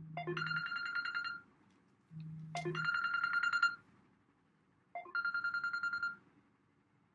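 Mobile phone ringing: three trilling rings, each about a second long, with roughly a second of silence between them. A brief low hum comes just before each of the first two rings.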